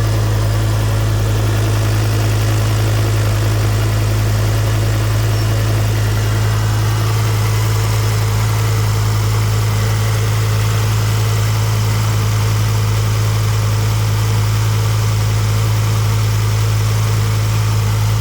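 Ford Focus ST's turbocharged engine idling steadily just after being started, with a steady low hum and no change in revs.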